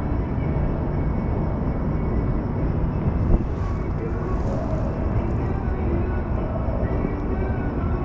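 Steady low rumble of a Las Vegas Monorail car in motion, heard from inside the cabin, with faint voices in the background and a single short knock about three seconds in.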